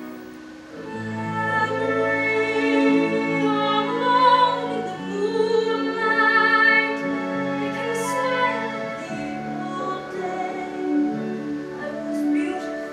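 A woman singing a slow musical-theatre ballad, holding long notes with vibrato, over sustained accompaniment chords.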